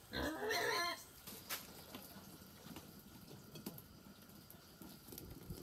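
A thin stream of liquid poured from a bottle into a metal wok, trickling steadily. A brief voice sounds at the very start.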